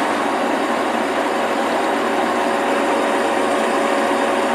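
TV-4 "Shkolnik" metal lathe running, its chuck spinning a steel bar: a steady machine whir with a constant tone.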